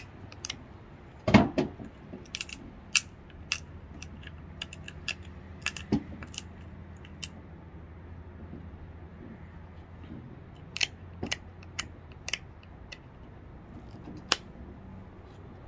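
Antler pressure flaker pressing flakes off a flint biface: irregularly spaced sharp clicks and snaps as flakes pop off the edge, with a heavier knock about a second and a half in.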